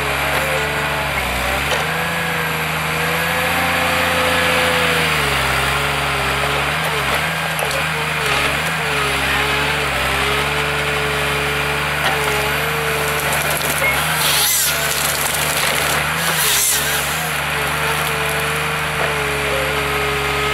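Forest harvester's diesel engine running steadily under hydraulic load, its pitch rising and dipping as the crane and Moipu 500 felling head work, with two sharp cracks of wood a couple of seconds apart in the latter part as small trees are cut.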